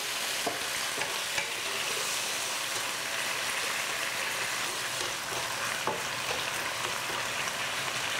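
Chicken wings sizzling and bubbling in a nonstick wok in black pepper sauce thinned with a little water, a steady frying hiss. A wooden spatula stirs and turns the wings, adding a few light clicks and scrapes against the pan.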